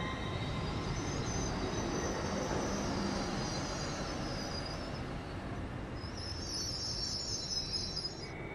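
LNER Class 801 Azuma electric train running away past the trackside, the steady rumble of its wheels on the rails slowly fading as it recedes. A high-pitched sound rises above it twice.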